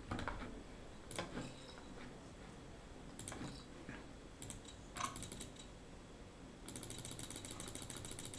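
Clicks as bet chips are placed in an online live blackjack game: a few single clicks at first, then a fast, even run of clicks near the end as chips are stacked one after another.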